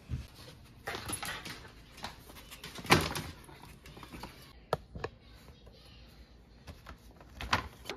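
A plastic treat pouch crinkling as it is handled, loudest about three seconds in, followed by a few sharp clicks.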